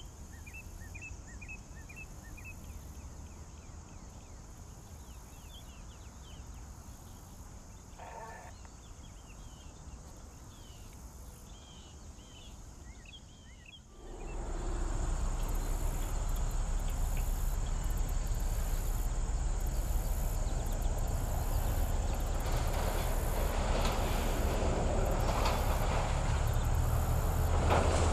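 High, repeated chirping over a low rumble. About halfway through it gives way to the diesel engine of an MLW S-13u end-cab switcher locomotive running with its train, a low hum that grows louder toward the end as it approaches.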